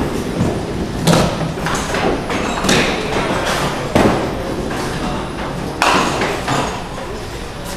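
Duckpin bowling: small hard balls thudding onto the wooden lanes and rolling, with pins clattering down, about five sharp knocks that echo in the large alley hall over a steady background rumble.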